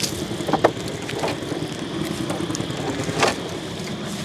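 Small boat's engine running steadily, with a few sharp knocks: one about half a second in, one at about a second and a quarter, and a louder one near three and a quarter seconds.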